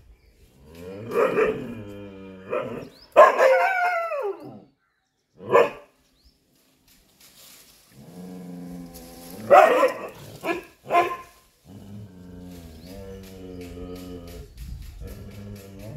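Chippiparai dog barking at monkeys in the trees: barks in bursts, with one longer bark falling in pitch about three seconds in and another cluster of barks around ten seconds in.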